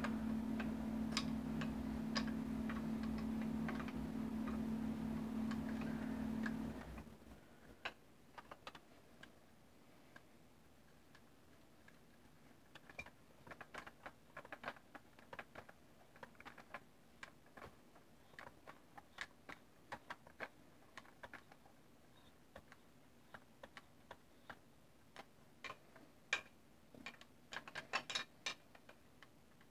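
Irregular small metallic clicks and ticks of a hex key turning the screw that fastens a Magpul MOE pistol grip to an AR-15 lower receiver, with a busier run of clicks near the end. A steady low hum sits underneath and cuts off suddenly about seven seconds in.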